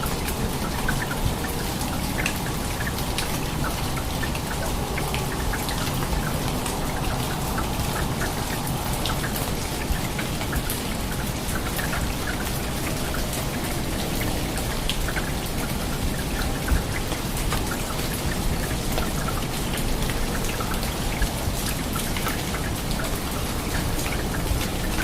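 Heavy rain pouring down steadily, with countless drops ticking and pattering on hard surfaces. There is one sharper thump about two-thirds of the way through.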